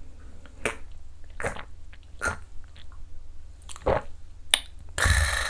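A man gulping down a shot of soju: several short separate swallowing clicks, then near the end a long breathy exhale after the drink.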